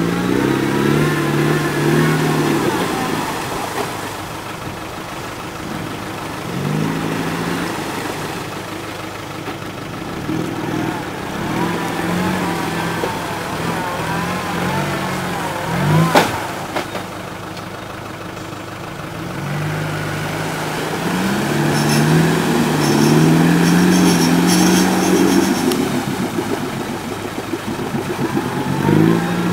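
Land Rover Defender's engine working off-road, its revs rising and falling again and again as the driver eases on and off the throttle. A single sharp knock about halfway through, and the engine is louder for a few seconds near the end.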